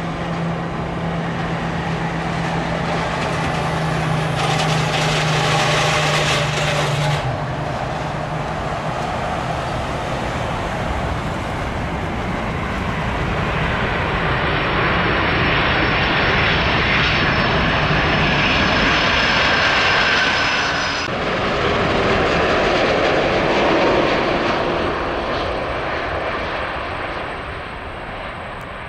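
Jet engines of a four-engined Boeing 747 freighter landing and rolling out on the runway, a continuous loud engine noise that swells during the roll-out. Near the end a Boeing 787 Dreamliner touches down as the level falls away.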